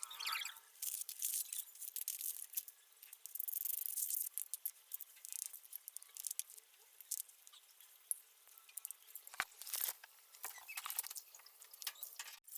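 Clear slime being squished and stretched by hand as makeup is mixed in, making irregular sticky clicks and crackles.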